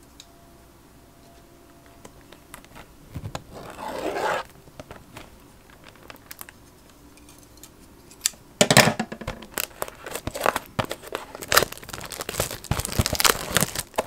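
Plastic shrink-wrap being torn and crinkled off a Topps Chrome baseball card blaster box. A short scraping rustle comes about four seconds in, then dense crackling from about nine seconds on.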